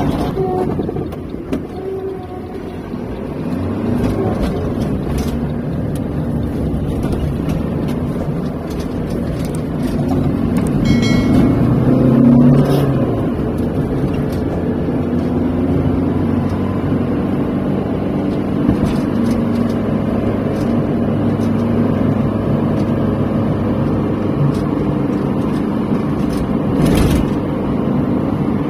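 Car engine and road noise heard from inside the cabin while driving at a steady speed, a continuous low hum, with a short high tone about eleven seconds in and a sharp knock near the end.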